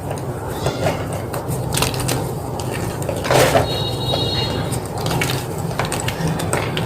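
Gym chalk being crushed, with irregular crunches and crackles; the loudest crunch comes about three and a half seconds in.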